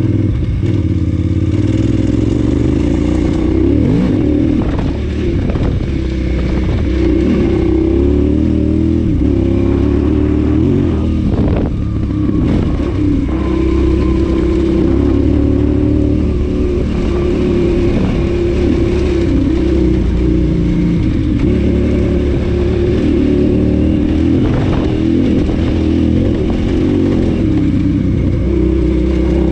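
KTM 990 Adventure S's LC8 V-twin engine running under way on a rough dirt track, its note rising and falling with the throttle. A few short knocks sound over it.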